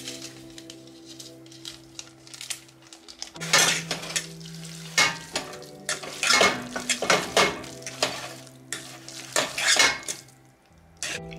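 Background music with a run of loud, sharp clattering and scraping noises from about three and a half seconds in until near the end.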